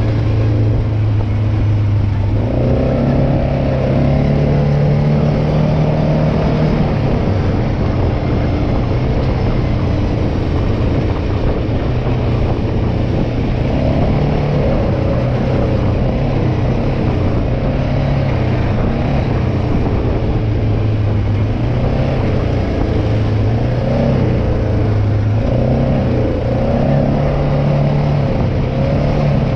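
ATV engine running under way, its pitch stepping up about two seconds in and shifting up and down a few more times with the throttle.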